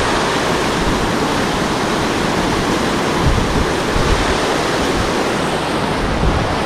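Water pouring through a dam's spillway gates and churning in the tailwater below: a steady, loud rush.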